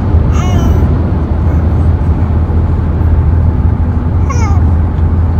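Steady low rumble of road and engine noise inside a moving car's cabin, with an infant's short high-pitched squeals about half a second in and again near the end.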